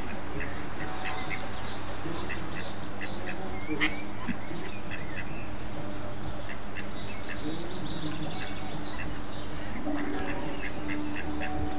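A brood of ducklings peeping constantly, short high calls coming several times a second, over a steady background noise.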